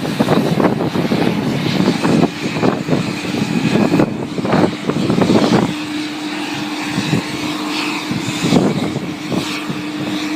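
Jet aircraft noise on an airport apron: a steady hum with a held mid-pitched tone under an uneven rushing sound.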